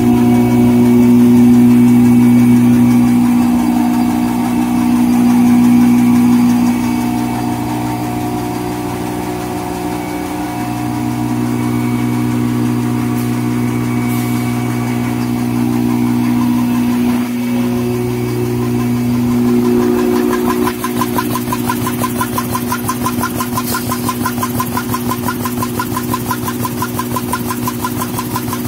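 High-speed N-fold hand towel paper machine running, with the steady multi-tone hum of its Roots vacuum blower. About two-thirds of the way through, the sound changes to a fast, even mechanical rhythm from the machine's rollers and folding section.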